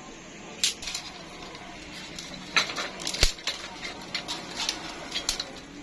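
Thin dry twigs being snapped by hand: a scattered series of sharp cracks, the loudest about three seconds in.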